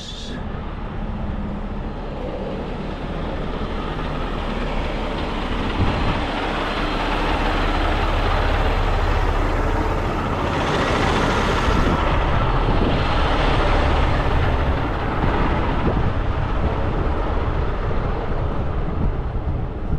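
Heavy diesel rotator tow truck running and pulling away with a utility truck in tow: a steady engine and road rumble that builds over the first several seconds and then holds, heard from a camera mounted outside the truck.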